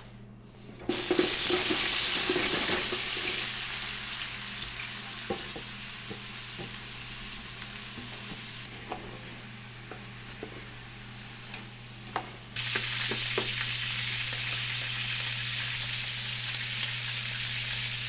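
Chopped vegetables sizzling in hot oil in a large aluminium stockpot while a wooden spatula stirs them, knocking and scraping now and then. The sizzle starts suddenly about a second in and eases off, then jumps up again about two-thirds of the way through. A steady low hum runs underneath.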